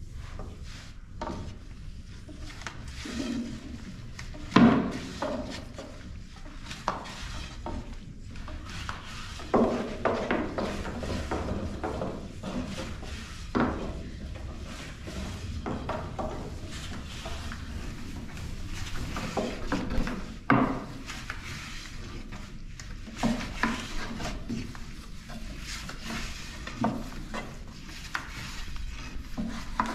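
Long thin wooden rolling pins rolling dough out paper-thin on round wooden boards: irregular wooden clacks and knocks with soft rolling scrapes, a few knocks louder than the rest, over a steady low rumble.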